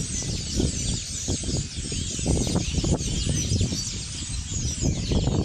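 A flock of small birds chirping and twittering together, many short rising and falling calls overlapping without pause, over a low rumbling noise.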